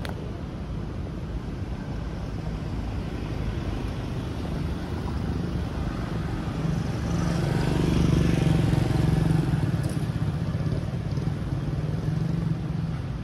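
Street traffic: a steady low rumble, with a motor vehicle's engine drawing close and passing, loudest about eight seconds in.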